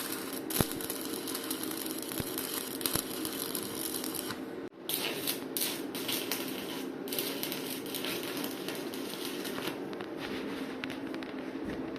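Electric arc welding: the arc crackling and sputtering steadily over a low machine hum. It cuts out abruptly about four and a half seconds in and is struck again a moment later.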